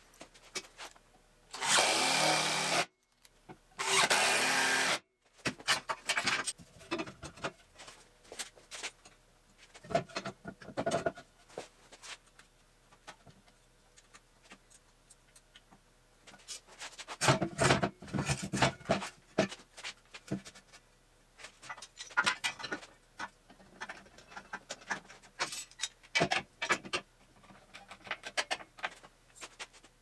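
Two bursts of about a second each from a cordless power tool near the start, then scattered clanks, clicks and knocks of steel parts and wooden beams being handled and clamped on a steel workbench.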